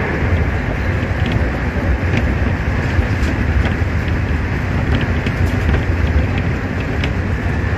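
Nankai 2000 series electric train running at speed, heard from the driver's cab: a steady rumble of wheels on rail, with a few short clicks scattered through.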